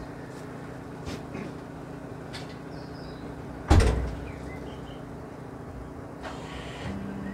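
A car door shutting with one heavy thump about halfway through, over a steady low hum and a few light clicks.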